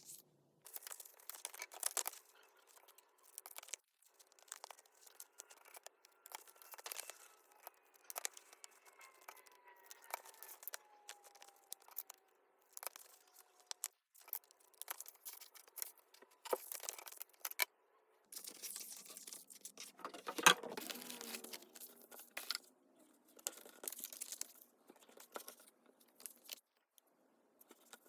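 Paper and cardstock being handled close up: irregular rustling, crinkling and tearing with scattered light taps, and a sharper knock about twenty seconds in.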